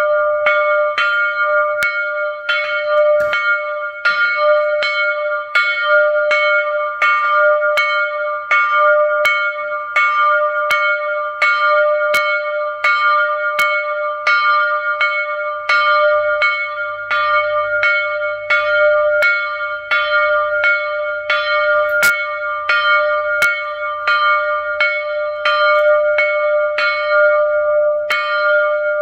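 A 45 cm church bell ringing, struck steadily about once every three-quarters of a second. Each strike sits over a sustained, overlapping ringing tone that never dies away.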